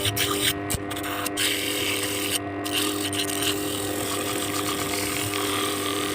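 Sanding machine driven by a washing machine motor, running with a steady hum while it grinds a coconut shell with a rough scraping hiss. The scraping breaks off for a moment several times, around the first second and again near two and a half seconds.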